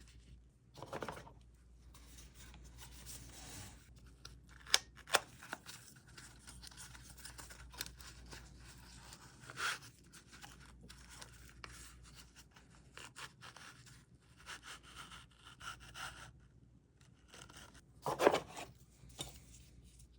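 Hand-handling noises: rubbing, scraping and rustling with a few irregular sharp clicks and knocks, loudest about a quarter of the way in and again near the end.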